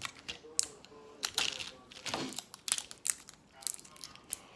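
Irregular small plastic clicks and crinkles from the snap cap of an M&M's plastic candy tube being pried and pressed with the fingers.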